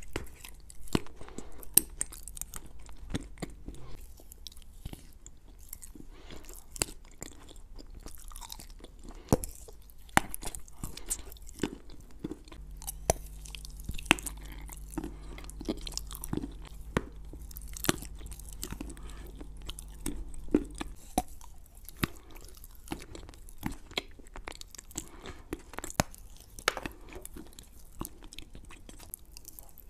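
Close-miked biting and chewing of a lump of chalk clay: many sharp, crisp crunches one after another.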